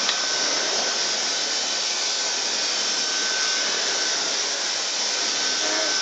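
Dyson DC44 Animal cordless stick vacuum running steadily while a small tool on its wand is worked over a fabric settee. It makes an even rush of air with a thin, steady high whine over it.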